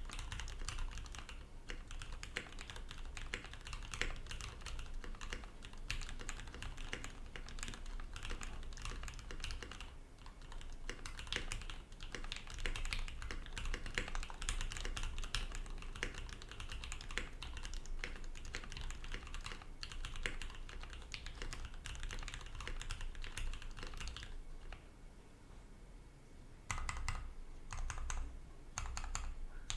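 Fast, continuous typing on a custom mechanical keyboard with lubed retooled Cherry MX Black linear switches, an aluminium plate and PBT keycaps: a dense stream of keystrokes that drops off for about two seconds near twenty-five seconds in, then picks up again.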